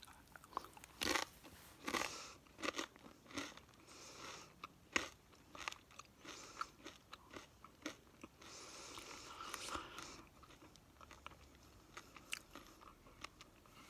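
Close-miked eating: crunchy food being bitten and chewed. Irregular crisp crunches, the sharpest about a second, two and five seconds in, with softer chewing between them.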